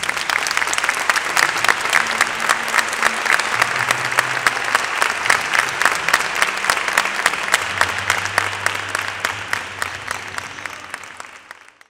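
Audience applauding: dense, steady clapping that starts abruptly, then thins out near the end and cuts off.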